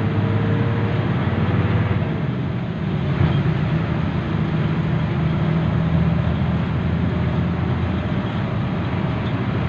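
Bus engine and road noise heard from inside the cabin: a steady low drone while the bus drives along a highway.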